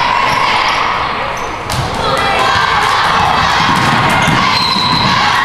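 Basketball game in a gym: the ball bounces on the hardwood floor in a run of short sharp thuds, with crowd voices and shouts throughout.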